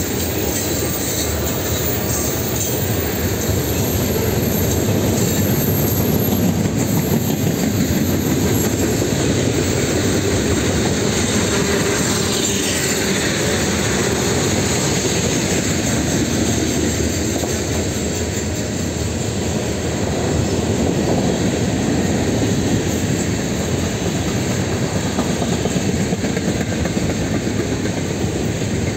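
Freight cars (tank cars and covered hoppers) rolling past at steady speed: a continuous rumble and rattle of steel wheels on rail.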